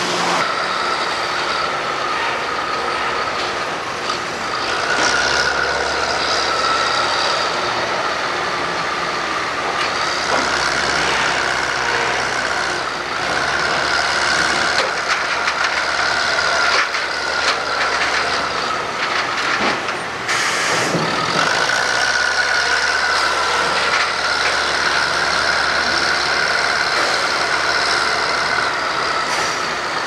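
Heavy machinery running steadily: a wheel loader's diesel engine working, with a continuous wavering whine over a low rumble.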